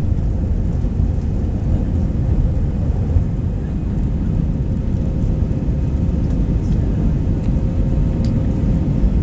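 Low, steady rumble of an Airbus A320-214's CFM56-5B turbofan engines under take-off power as the airliner climbs away, with a faint steady tone above the rumble.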